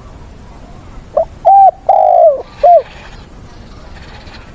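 Spotted dove cooing once, about a second in: a phrase of four notes, the third held longest.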